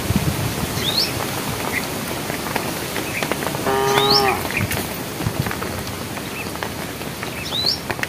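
A cow moos once, a short call of about half a second near the middle, over steady rustling. A few faint, short, rising chirps are heard in the background.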